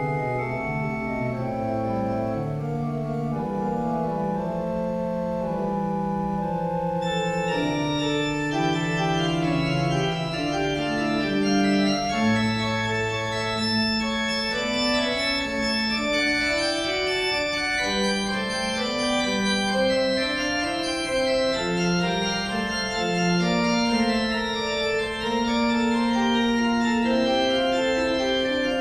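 Church organ playing slow, held chords over low bass notes. About seven seconds in the sound grows fuller and brighter.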